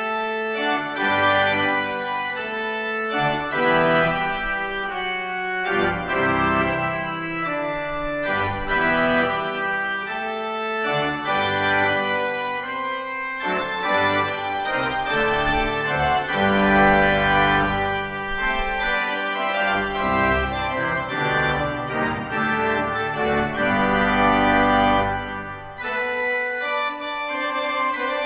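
Pipe organ playing slow, sustained chords over deep pedal bass notes, with a short break near the end.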